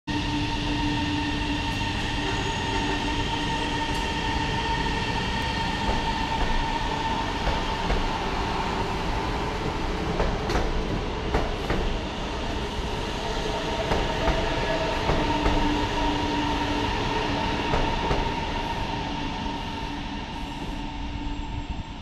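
CSR electric multiple unit pulling out of the station, its electric drive humming in several steady tones over a rumble of wheels on rails, with a few clicks from the wheels about halfway through. The sound fades over the last few seconds as the train draws away.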